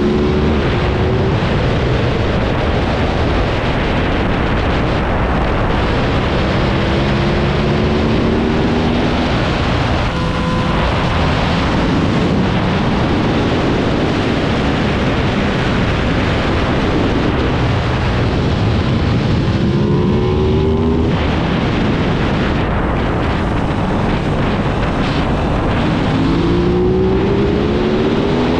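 Aprilia RS660 parallel-twin engine pulling at speed, its pitch climbing several times as it revs up, under a steady heavy rush of wind on the bike-mounted microphone.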